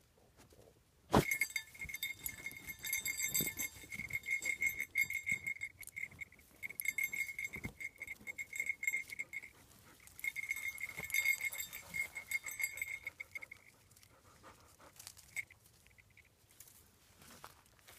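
Basset hound whining at a burrow: a high-pitched, long whine that pulses quickly in loudness, starting suddenly about a second in with a knock, breaking briefly partway, and stopping a few seconds before the end.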